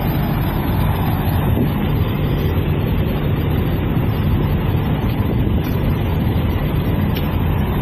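Heavy diesel truck engine idling: a steady low rumble with no change.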